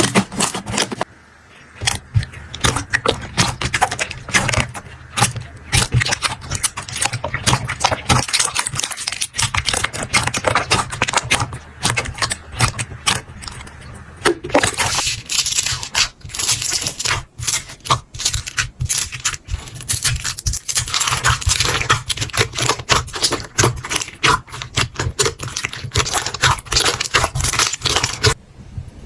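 Slime being squeezed, poked and pressed close to the microphone, making dense crackling and clicking with some scraping. The sound changes character a few times, as one clip cuts to the next.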